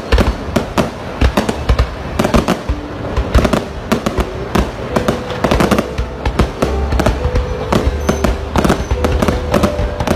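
Aerial fireworks going off in a dense barrage: many sharp bangs and crackles of bursting shells, several a second, with no let-up.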